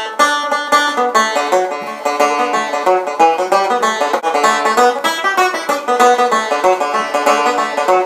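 Clareen resonator banjo played solo, a quick run of picked single notes in a lively tune.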